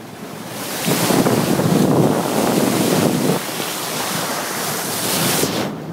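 Water rushing and splashing along the hull of a moving boat, with wind buffeting the microphone. The rush swells about a second in and eases a little after about three seconds.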